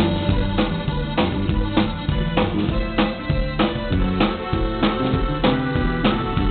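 DW drum kit played live with a band: a steady beat roughly every 0.6 s over bass and other pitched instruments.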